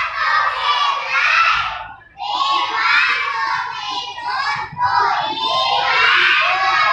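Young children's high voices singing.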